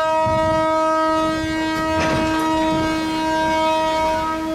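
Diesel locomotive's horn, most likely M5c 782's, sounding one long steady blast at a single pitch. It is heard over the rumble of the running train, with a brief rush of noise about two seconds in.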